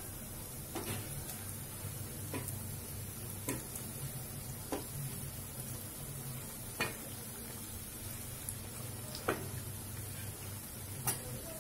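Gulgula fritters sizzling steadily as they deep-fry in hot oil, with about seven light metallic taps at uneven intervals as a perforated metal skimmer turns them against the pan.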